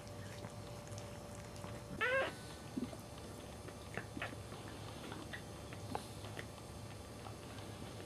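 Newborn Cairn Terrier puppy giving one short, loud squeal that wavers in pitch about two seconds in, followed by a few faint, short squeaks.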